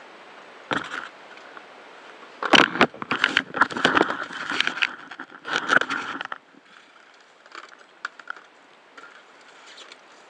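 Scuba regulator exhaust bubbles crackling and scraping past an underwater camera housing: a short burst about a second in, a longer, louder stretch in the middle, then faint crackling.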